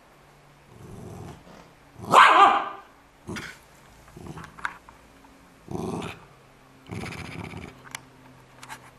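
A small schipperke dog growling and giving short barks in a series of separate outbursts, the loudest about two seconds in: warning noises as she guards her pillow.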